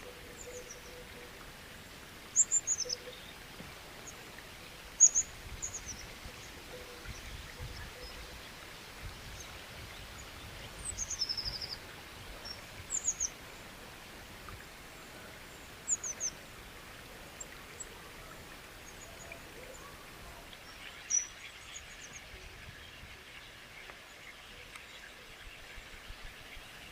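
Small birds chirping in short, high, falling notes every few seconds over a steady background hiss of running water.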